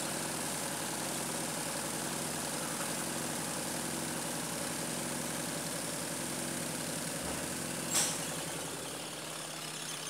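Washing machine's electric motor running with a steady hum. A sharp click comes about eight seconds in, after which it runs a little quieter.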